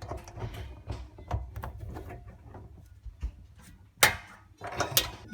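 Steel offset ring spanner clicking and clinking against the tap's mounting nut and the fittings under the basin as it is worked round to tighten the loose mixer tap, with sharper knocks about four seconds in and again near five seconds.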